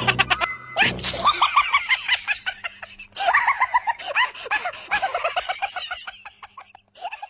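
High-pitched laughter in quick, repeated bursts, starting after a sharp breath about a second in and stopping shortly before the end.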